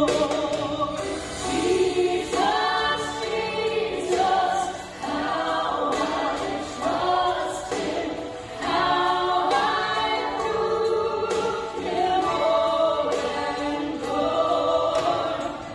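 Two women singing a gospel song through microphones, held sung notes carried on without a break.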